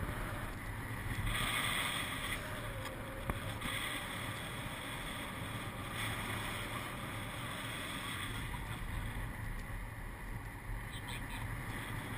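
Wind rushing over the camera microphone of a paraglider in flight: a steady rush that gets louder for about a second, about a second in.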